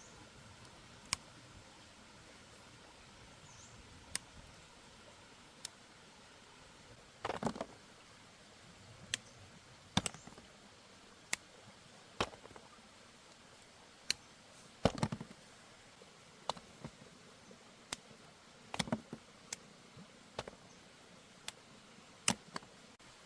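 Short, sharp clicks and knocks at irregular intervals, roughly one a second, some doubled or in quick little clusters, over a faint steady hiss.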